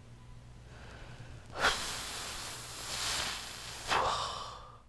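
A person breathing out: a long breathy exhale starting suddenly about a second and a half in, then a shorter breathy burst near the end that fades away.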